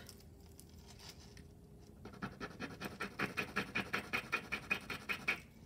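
A piece of jewelry scratched rapidly back and forth against a testing stone, about eight quick strokes a second, starting about two seconds in. It is being tested to see whether it is really sterling silver.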